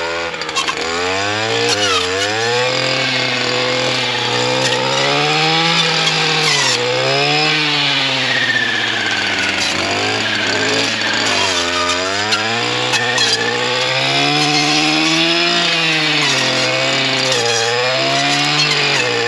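STIHL FS 240R brush cutter's two-stroke engine running hard with a Forester 9-inch saw-chain blade, its pitch dipping and climbing back every couple of seconds as the blade bites into brush and branches.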